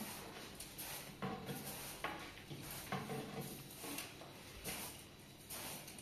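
Light, irregular knocks and scrapes of something being handled, about one a second, over a faint steady hiss.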